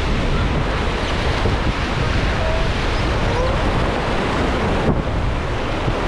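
Whitewater rapids rushing around an inflatable raft, a loud steady noise, with wind buffeting the microphone.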